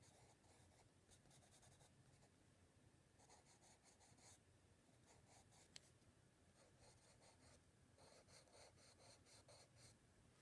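Charcoal pencil scratching faintly on sketchbook paper in several spells of quick, short shading strokes, with one small sharp click near the middle.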